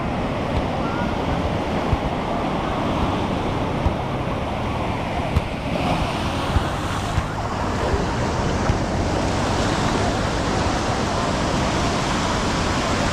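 Ocean surf breaking and washing up onto the sand: a steady rushing that swells as a wave washes in about six seconds in.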